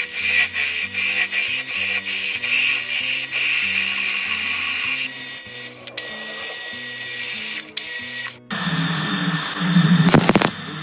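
Background music with a stepping bass line. About eight seconds in it cuts abruptly to the steady noise of a metal lathe running and cutting, with a few sharp scraping strokes near the end.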